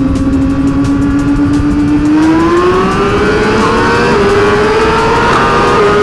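Inline-four superbike engine pulling under hard acceleration: its note holds, then climbs steadily from about two seconds in, with a quick dip near four seconds and again near six as it shifts up. A steady rush of wind noise runs underneath.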